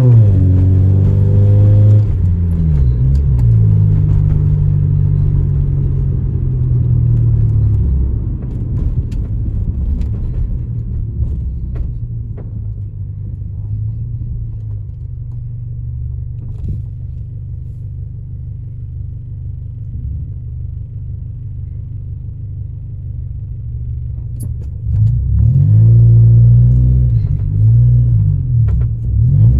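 Honda Civic EJ9 engine, heard from inside the car, running with misfires on all four cylinders. The revs drop at the start, the engine then runs low and quieter for a long stretch, and the revs climb again about 25 seconds in as the car accelerates.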